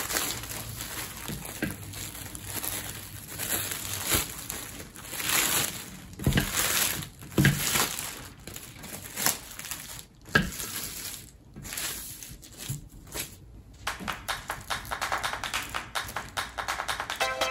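Thin black plastic garbage bag crinkling and rustling as it is spread out and handled, in irregular bursts.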